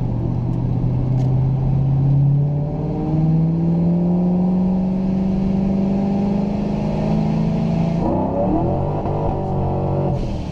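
Supercharged Ford Mustang GT V8 heard from inside the cabin while driving. Its engine note climbs slowly in pitch for several seconds, then falls away from about eight seconds in.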